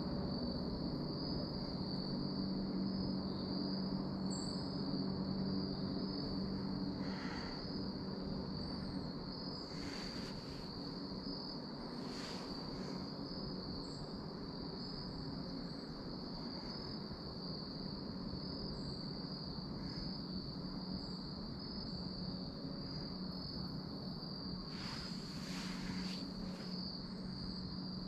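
Insects, crickets by the sound, trilling steadily on one high pitch without a break. A few brief rustles come through about 7, 10 and 12 seconds in and again near the end.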